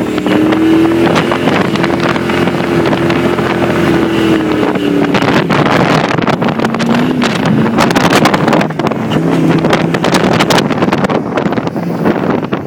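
Willys jeep engine running hard in the sand, holding a steady pitch for about five seconds, then dropping and wavering, with wind buffeting the microphone through the second half.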